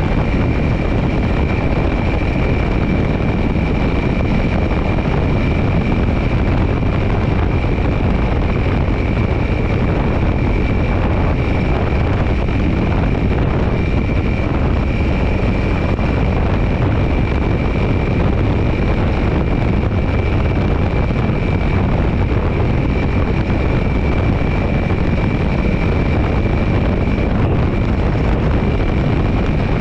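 Dirt bike engine running steadily at cruising speed, about 60–70 km/h on a gravel road, mixed with wind noise on the microphone and tyre rumble. A thin, steady high whine runs through it.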